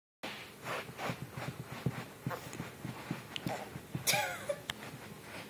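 Chihuahua puppy pouncing and pawing at a socked foot: a run of soft, irregular thumps and taps, with one brief high-pitched squeal about four seconds in.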